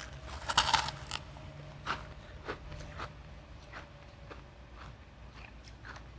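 Refrozen crushed ice being bitten and chewed close to the mic. A loud cluster of crisp crunches comes about half a second in, then single, softer crunches every half second or so as it is chewed.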